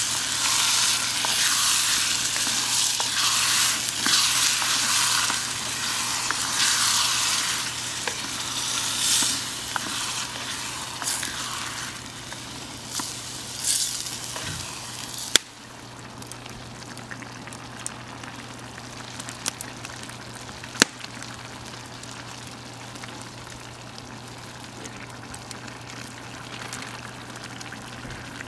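Chopped tomatoes and onion sizzling in a cast-iron Dutch oven over a wood fire, stirred with a wooden spatula. About halfway through the sizzle drops to a much quieter simmer, with a few sharp clicks.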